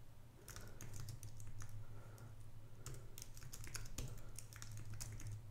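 Computer keyboard typing: an irregular run of key clicks, over a low steady hum.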